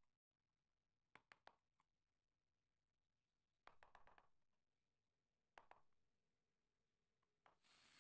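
Faint clicks and cracks of a steel wood chisel cutting slots into a teak board, in short clusters: about a second in, near four seconds and near six seconds. Near the end an electric angle grinder with a sanding pad starts running with a steady hiss and a high whine.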